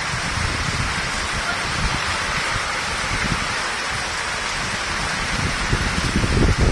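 Heavy monsoon rain pouring steadily onto a flat rooftop and the streets around it, an even hiss with a low, uneven rumble underneath.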